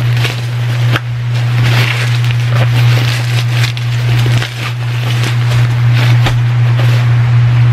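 Plastic packaging and a nylon carry bag crinkling and rustling irregularly as a folding camping chair is unwrapped and handled, over a steady low hum.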